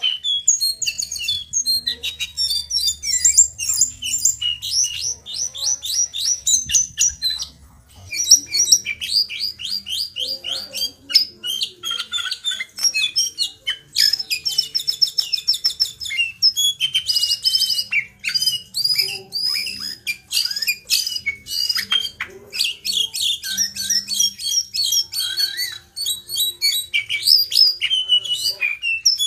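A young male brown jongkangan (juvenile, still in spotted plumage) singing almost without a break: rapid, high trills, chattering runs and whistled notes, with short pauses twice. This is a young bird still learning its song, practising its rolls, chatter and whistles.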